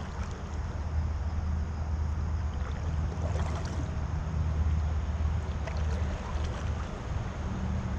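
Aluminium canoe moving along a calm river: a steady low hum under a soft wash of water and air noise, with a few faint light ticks.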